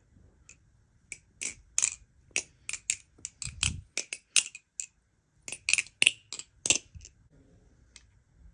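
Marcolo Comet balisong being flipped: its handles clack against each other and the blade in quick, irregular runs of sharp clicks, with a duller thump about three and a half seconds in.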